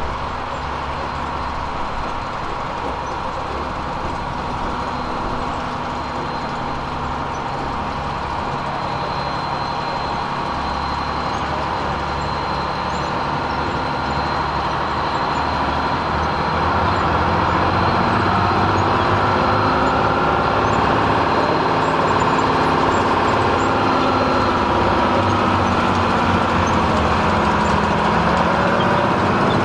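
Small narrow-gauge diesel switcher locomotive running, its engine growing louder about halfway through as it draws near and passes close by.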